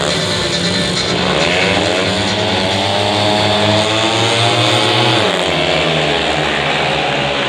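Speedway bikes' single-cylinder methanol engines revving at the starting gate, then accelerating away as the race starts about five seconds in.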